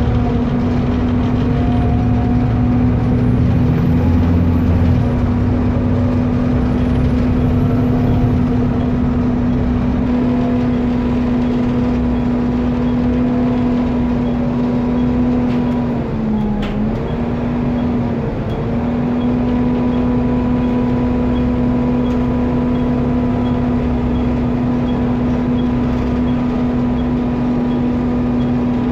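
Alexander ALX400 double-decker bus's engine running steadily under way, a loud engine roar heard from the back seats of the lower deck. Its pitch dips briefly a little past halfway, with a short click, then settles back to the same steady drone.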